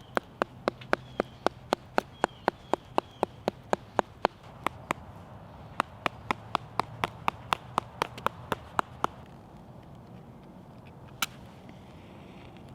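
Sharp knocks on wood, about four a second, in two runs with a short pause between, then a single knock a few seconds later, from a piece of wood being struck hard while coffee beans are readied for grinding.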